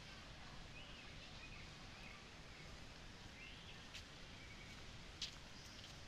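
Quiet open-air ambience with faint, scattered bird chirps and a couple of sharp light clicks, one about four seconds in and one just after five.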